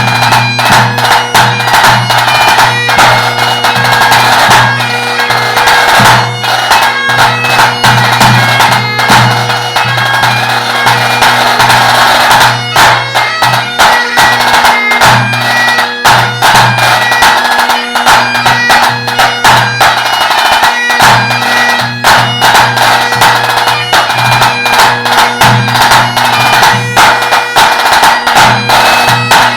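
Great Highland bagpipe playing a tune over its steady drones, with a tenor drum struck in quick, dense strokes throughout.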